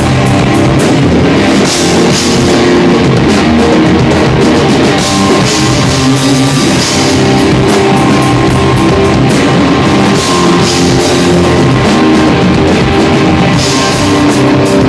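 Live rock band playing loud: two electric guitars over a drum kit, with the cymbals and drums struck continually.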